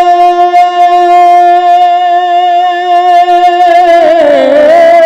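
Male naat reciter holding one long sung note without wavering, then breaking into a wavering melismatic run about four seconds in, with heavy delay echo from the stage sound system.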